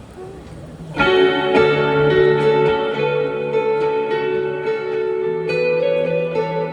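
Live band music: a guitar-led passage comes in loudly about a second in, with sustained chords ringing and changing every second or so.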